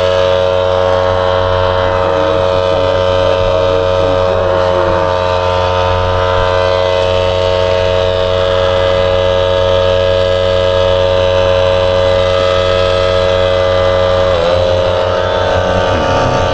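Portable air compressor running with a steady motor hum, its pitch dipping briefly near the end.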